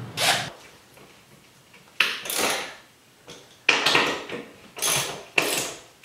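A metal articulating TV wall-mount bracket clattering and scraping in short bursts, about five times, as it is handled and set against the wall.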